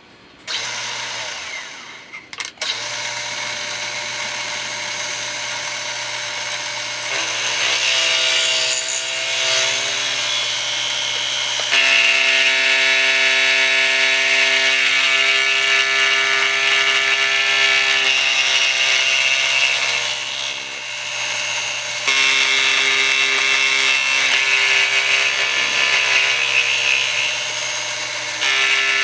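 Excello milling machine spindle starting up, then its cutter milling a metal brake pedal box. Machining noise with ringing tones that come and go as the cutter bites, growing louder about seven seconds in and again about twelve seconds in, and easing off briefly about two-thirds of the way through.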